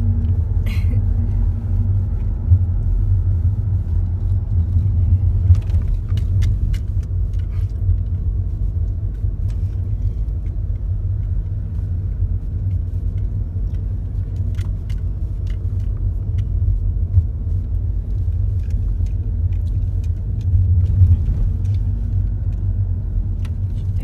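Car driving, heard from inside the cabin: a steady low rumble of road and engine noise, with scattered small clicks and knocks along the way.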